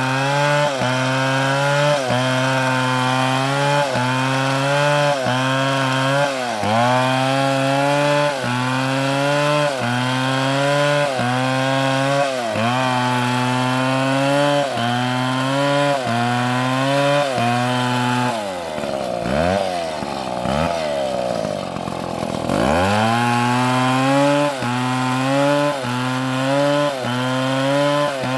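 STIHL two-stroke chainsaw cutting into a large redwood log at full throttle, its engine speed sagging and recovering about once a second as the chain bites and is eased. A little past halfway the engine drops toward idle, then revs back up into the cut.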